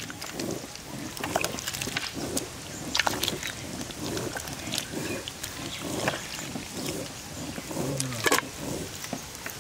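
Hands squeezing and kneading soaked tamarind pulp in a steel pot of water: irregular wet squelching and sloshing with small splashes.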